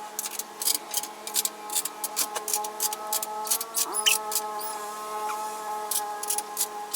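Many light, irregular metallic clicks of bolts and washers being handled and dropped into place on a truck bed, over a faint steady whine of several tones.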